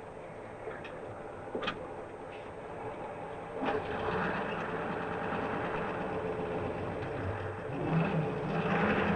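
Scania 140's V8 diesel truck engine running steadily, its drone rising in level about four seconds in and again near the end, with a few sharp clicks in the first seconds.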